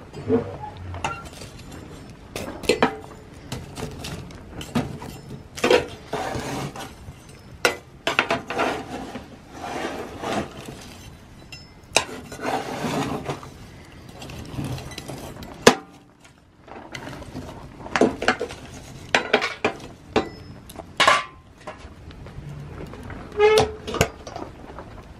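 Clanks and knocks of a small steel tent wood stove being worked by a gloved hand: the firebox door unlatched and swung open, the fire tended, and the door shut and latched again. Many separate sharp metallic knocks, some briefly ringing.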